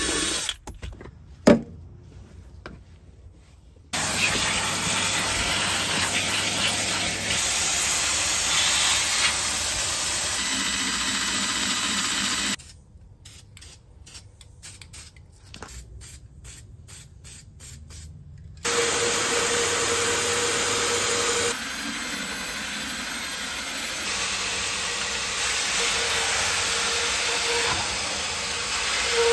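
Interior cleaning equipment giving a steady rushing hiss that cuts in and out abruptly several times. Between these stretches come quieter spells of scattered clicks and knocks.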